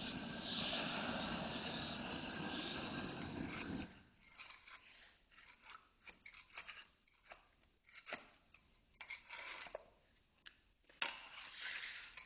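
Roofing torch flame hissing steadily, cut off abruptly about four seconds in. After it come irregular scraping, crackling and tearing sounds as the heated vinyl flooring is scraped and pulled up from the concrete.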